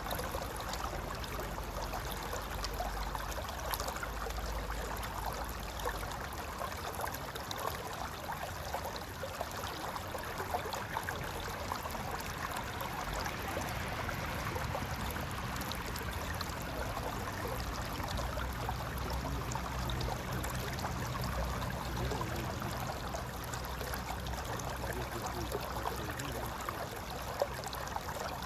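Mountain river flowing and gurgling steadily over rocks.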